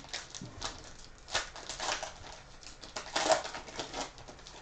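Foil wrapper of a football trading-card pack crinkling as it is torn open and handled, in a few short rustling bursts.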